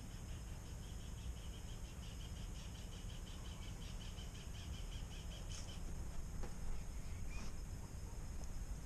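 Insects chirping in a rapid, even pulse that stops about six seconds in, over a steady high-pitched buzz and a low rumble on the microphone. A few faint clicks come near the end.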